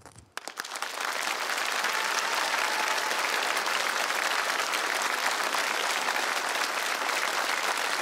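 Studio audience applauding. The clapping breaks out about a third of a second in and then holds steady.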